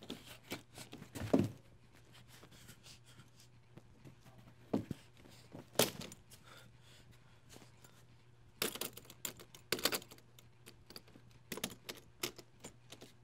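Irregular clicks, taps and short rustles of small objects being handled, in several little clusters, over a faint steady low hum.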